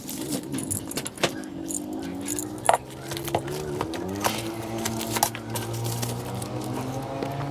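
An engine running with its pitch wavering up and down as the speed changes, with sharp metallic clinks and rattles over it.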